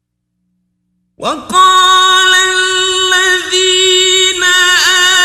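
Silence for about a second, then a male reciter begins melodic Quran recitation (tajweed), drawing the words out in long, held notes with slow bends in pitch.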